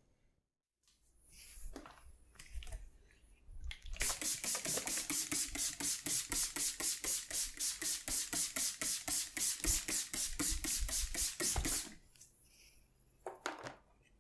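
Hands working quickly in a steady rhythm of massage strokes on skin and hair, about five strokes a second for some eight seconds, with a few softer scattered touches before and after.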